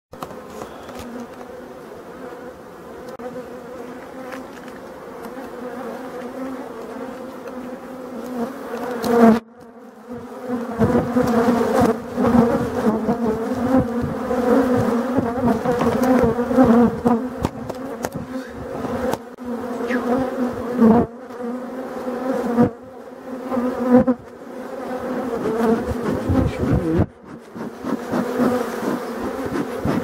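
A mass of black honeybees (European dark bees) buzzing in a dense, steady hum around an opened Voirnot hive, defensive and attacking as the hive is opened. The buzz grows much louder about ten seconds in, with a few sudden brief drops.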